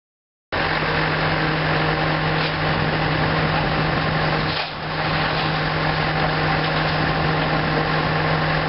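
Steady hissing roar with a constant low hum from the CNJ 113 steam locomotive, its boiler at 50 psi on its first fire. Silent for the first half second, with a brief dip about halfway through.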